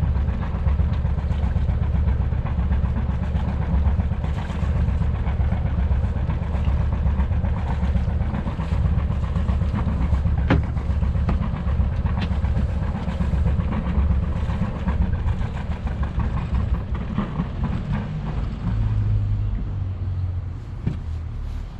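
Sailboat's inboard diesel engine running with a steady, pulsing low rumble, with a single sharp knock about halfway through. It gets quieter near the end.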